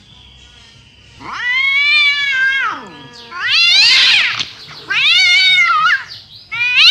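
Feral cat yowling angrily: after about a second of quiet, three long drawn-out wails of about a second each, each rising and then falling in pitch, with a fourth starting near the end.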